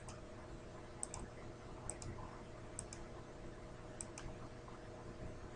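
Computer mouse button clicked five times, about once a second, each click a quick double tick of press and release, over a faint steady hum.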